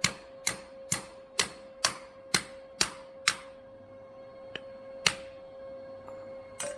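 Hand cable cutter clicking as it is worked through heavy 4/0 copper battery cable, about two sharp clicks a second. The clicks stop about three seconds in, and a few single clicks follow. A steady faint tone runs underneath.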